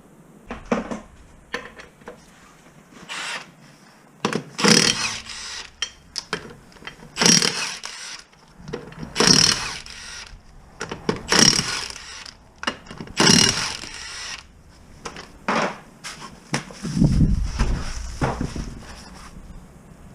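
Mechanic's tool work on the van: a series of short mechanical bursts, each under a second, coming about every two seconds, with a heavy thud near the end.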